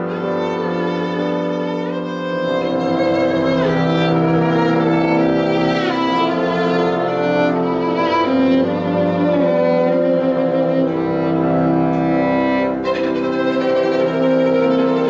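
Violin playing a melody in long held notes with vibrato and slides between pitches, over sustained chords from an electronic keyboard.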